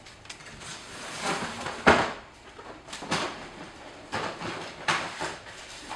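Handling noise from a cardboard shoebox being pulled down and moved: a few scraping, rustling bursts, with a sharp knock about two seconds in.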